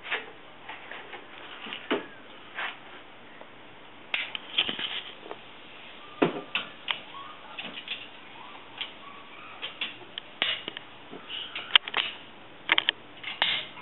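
Irregular clicks and clanks of hand tools on metal as an old outer tie rod end is worked loose and turned off its threads, the clicks coming more often in the second half.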